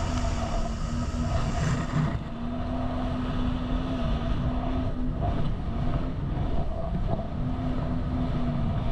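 Jet ski engine running at speed, a steady engine note that dips and breaks briefly a few times, over wind rushing across the microphone and water spray.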